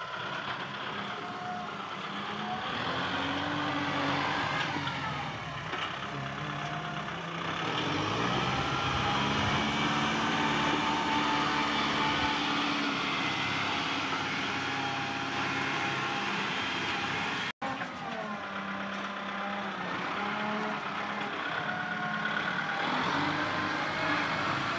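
Kubota tractor's diesel engine running while its front loader works, its pitch rising and falling as the engine speed changes, with voices in the background. The sound breaks off for an instant about two-thirds of the way through.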